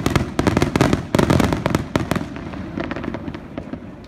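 Finale barrage of aerial firework shells bursting in rapid, overlapping bangs. About halfway through the bangs thin out and die away into a few scattered faint pops.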